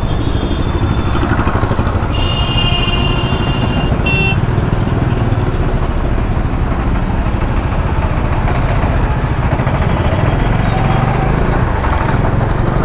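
Bajaj Dominar 400's single-cylinder engine running at low speed in stop-and-go traffic, with the rumble of the surrounding street traffic. Vehicle horns honk several times between about two and six seconds in.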